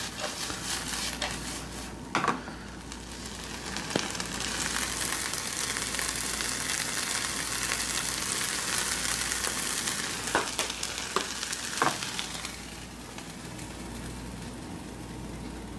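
Washed squash seeds sizzling as they dry-roast in a nonstick skillet, the moisture cooking out of them. They are tossed in the pan at the start, there are a few sharp clicks along the way, and the sizzle falls off near the end.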